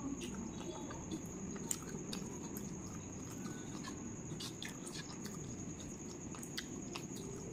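Close-up chewing of rice mixed with a crunchy fried topping: irregular small crunches and clicks, one sharper click about two seconds in.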